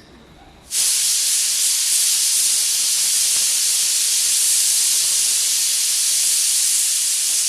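Pressure cooker whistling: steam forces up the whistle weight and escapes in a loud, steady hiss that starts suddenly about a second in. The cooker has reached full pressure, the one-whistle signal the cook is waiting for.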